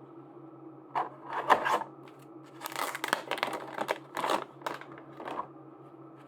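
Merchandise packaging being handled and opened by hand: a series of short rustling, crinkling and tearing sounds over a steady low hum.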